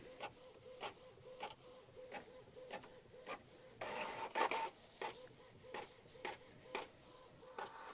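Canon Pixma MX452 inkjet printer printing: faint repeated clicks and whirring from the print head and paper feed, a few a second, with a louder stretch of movement about four seconds in.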